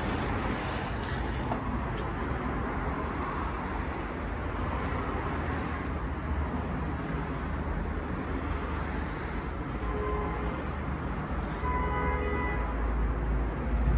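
Steady street traffic noise with a low rumble. A vehicle horn sounds briefly about ten seconds in and again a couple of seconds later.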